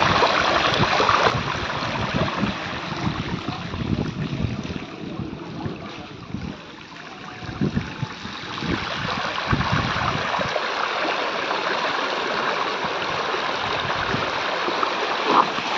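Shallow floodwater sloshing and splashing in a steady wash, with a few heavier low sloshes about eight to ten seconds in.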